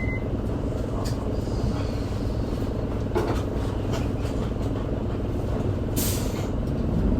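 Isuzu Erga city bus's diesel engine running steadily at low revs, heard from inside the cabin, with a few light clicks. A short hiss of air about six seconds in, typical of the air brakes.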